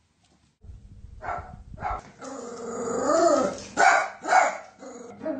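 A dog growling and barking: a low rumbling growl starts about half a second in, then pitched rising-and-falling vocalising with two loud sharp barks in the middle.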